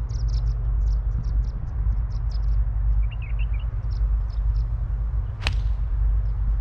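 Wind buffeting the microphone, with small birds chirping repeatedly, and one sharp crack about five and a half seconds in: a golf club striking the ball off the tee.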